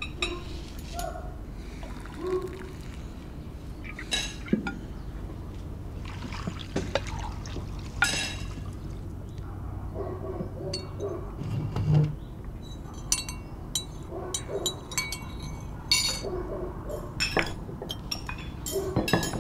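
Breakfast-table sounds: tea poured from a ceramic teapot into a cup, with glasses, cups and dishes clinking now and then, most often in the last few seconds.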